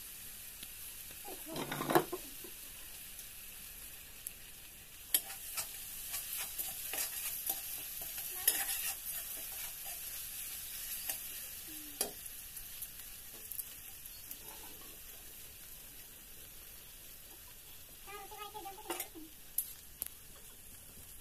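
Onion masala frying in a steel kadai over a wood fire, sizzling steadily, while a metal spatula stirs and scrapes against the pan at intervals, with a loud clack about two seconds in.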